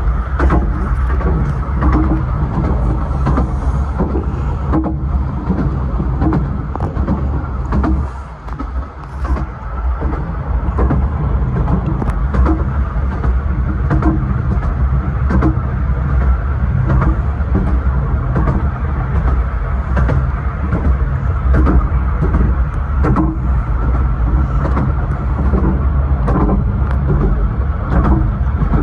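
A 15-inch gauge miniature railway carriage running along the track, heard from inside its rear compartment: a steady low rumble with frequent sharp clicks and knocks from the wheels on the rails. The rumble dips briefly about eight seconds in.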